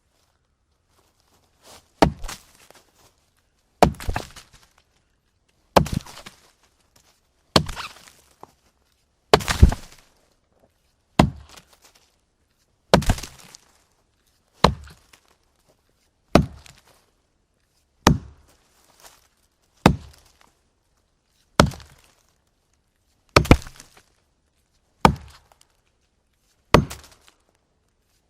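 A wooden log being chopped: a steady series of about fifteen sharp chops, one roughly every 1.8 seconds, each with a short ringing tail.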